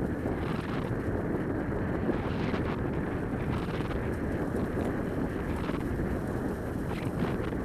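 Steady rolling rumble of a dog-drawn rig moving along the trail behind the team, with wind on the microphone.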